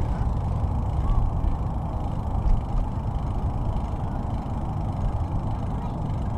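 Steady low rumble of wind buffeting a bike-mounted camera's microphone, mixed with bicycle tyres rolling on a concrete path.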